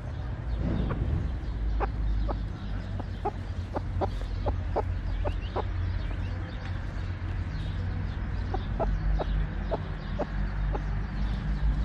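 Broody hen clucking in short, repeated clucks: one run of about ten clucks, then a second run of about six a few seconds later, over a low steady rumble.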